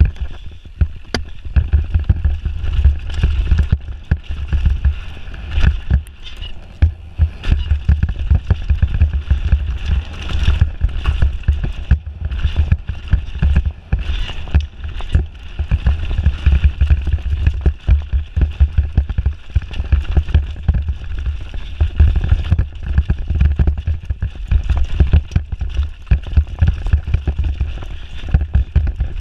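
Mountain bike descending a rough gravel and dirt trail at speed: tyres crunching over stones and the bike rattling over bumps in a constant stream of knocks, with heavy wind rumble on the microphone.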